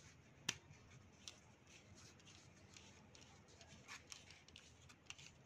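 Faint handling of an all-metal retractable ballpoint pen as its barrel is twisted open at the joint: a light click about half a second in, then a few small ticks and rubbing, otherwise near silence.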